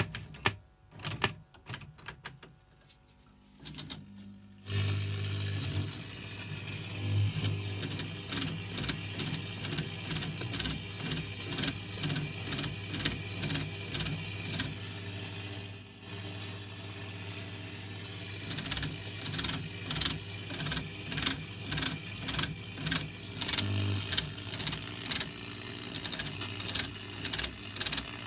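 Collins R-390 shortwave receiver's mechanical tuning gear train turning as it is tuned, giving a run of regular clicks about one and a half to two a second, closer together and louder in the last third, over a steady low hum. The first few seconds hold only a few faint clicks.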